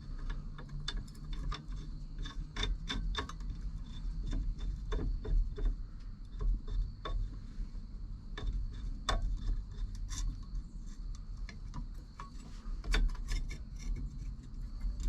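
Irregular clicks, light taps and rubbing of steering-wheel parts and hardware being handled and worked into place on the steering column, over a low steady hum.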